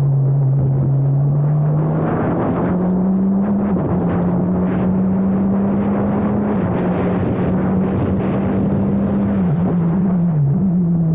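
Formula Abarth single-seater's 1.4-litre turbocharged four-cylinder engine running hard on track. Its pitch climbs over the first few seconds, dips briefly about four seconds in, holds high, then drops and wavers near the end.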